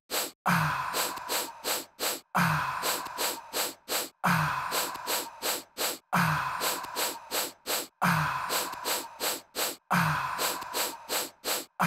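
Background music: a looped electronic beat that repeats about every two seconds, each bar opening with a deep hit that drops in pitch and a burst of hiss, followed by a run of short, sharp hits.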